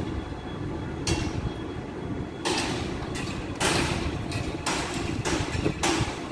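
Building-site noise: a steady low rumble with a string of short hissing whooshes, about six, each under a second long.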